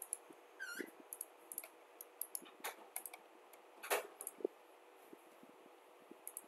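Irregular clicks of a computer mouse, bunched in the first four and a half seconds, the loudest about four seconds in, with one brief high squeak just under a second in.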